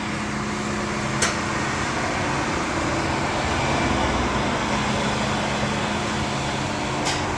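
Ram Power Wagon's 392 Hemi V8 idling steadily through a trial exhaust setup that is being auditioned. A single sharp click comes about a second in.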